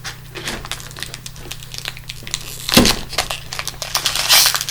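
Pokémon booster pack wrapper being crinkled and torn open by hand, with many small crackles, a single thump about three seconds in, and a louder stretch of tearing near the end.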